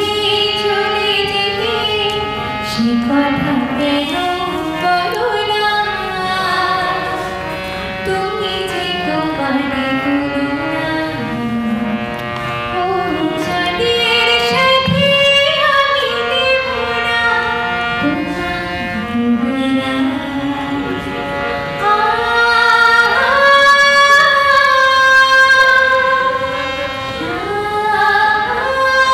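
A woman singing a slow, melismatic song into a microphone, holding and bending long notes; the singing grows louder and higher about three quarters of the way through.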